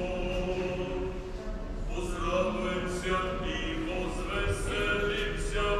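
Choir chanting Orthodox church chant: several voices holding long notes and moving from note to note together.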